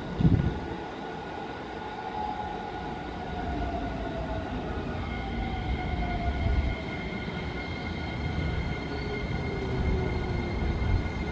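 Keikyu 1000 series electric train pulling into the platform and slowing to a stop, over a steady low rumble. A short low thump comes just after the start. A motor whine falls slowly in pitch as it brakes, and a thin steady high tone joins about halfway.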